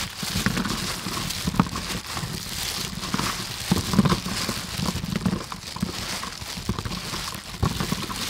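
Plastic gloves crinkling as handfuls of sticky, sauce-coated fried meatballs are squished together and dropped back onto a metal tray, with many small irregular clicks and squelches.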